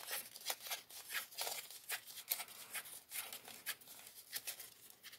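A paper strip being folded back and forth by hand into accordion pleats: irregular crisp rustles and creases, a few a second.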